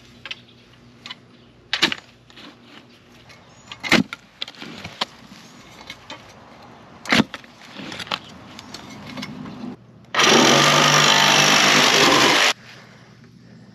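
A manual post-hole digger stabbing into sandy soil, giving three sharp thuds spaced a couple of seconds apart. Near the end comes a cordless power saw cutting through a bamboo pole for about two seconds, loud and steady.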